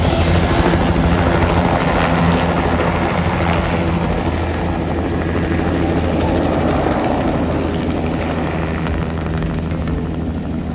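Light helicopter with a two-bladed main rotor running at flight power as it lifts from a low hover, turns and flies away; the steady rotor beat and engine noise gradually fade with distance.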